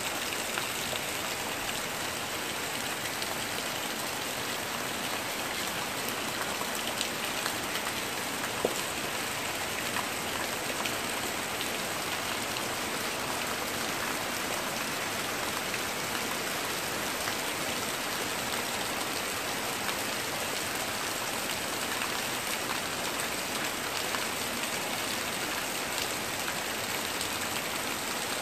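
Heavy rain falling steadily on leaves and ground, a dense even hiss with a few louder drop hits.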